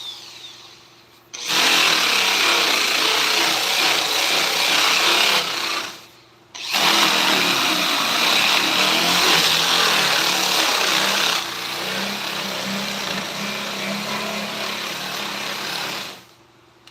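A handheld power tool running against wood in two spells, each starting and stopping abruptly, with a short pause between them. The second spell drops to a lower, lighter pitch of work about two-thirds of the way through.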